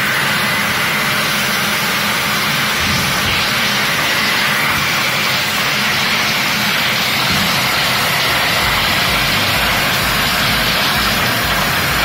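Philips FC8474 1800 W bagless cylinder vacuum cleaner running at full suction, a loud, steady rush of motor and air through the open hose wand. It cuts off suddenly at the end.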